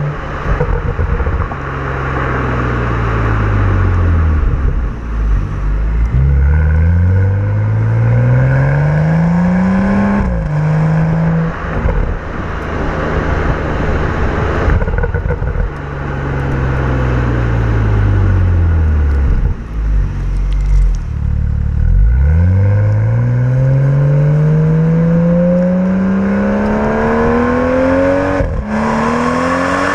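2015 BMW M235i's turbocharged inline-six revving up and down through the gears. The revs climb in long rising sweeps and fall away on the overrun. Near the end it runs at full throttle, the pitch dropping sharply at an upshift of the 8-speed automatic before climbing again.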